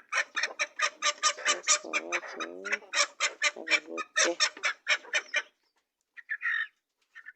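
Kienyeji chickens clucking: a rapid run of short calls, about four or five a second, that stops about five and a half seconds in, followed by two more short clucks near the end.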